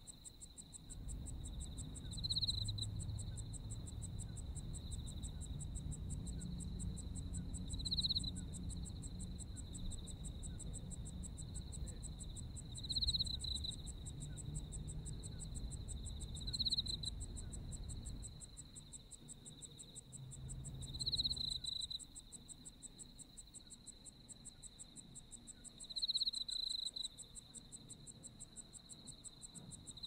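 Chorus of autumn crickets: a steady high ringing trill with a faster, higher pulsing song above it, and one insect's call swelling louder every few seconds. A soft low rumble sits underneath and drops away about two thirds of the way through.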